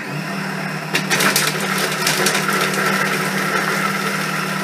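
Monsieur Cuisine Connect food processor's motor starts and runs steadily at speed 6. From about a second in, its blade chops a quartered onion, with pieces rattling and crunching against the mixing bowl.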